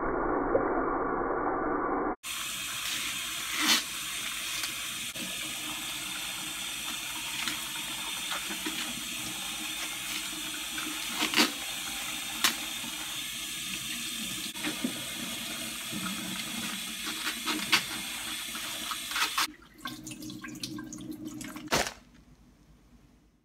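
Tap water running steadily into a stainless steel kitchen sink while fresh ears of corn are rinsed and husked under it, with a few sharp snaps from the husks being pulled off. Near the end the water sound drops away.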